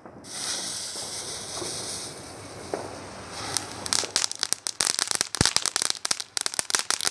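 Comet Victory ground fountain burning: a steady spraying hiss, which from about three and a half seconds in turns into dense, rapid crackling.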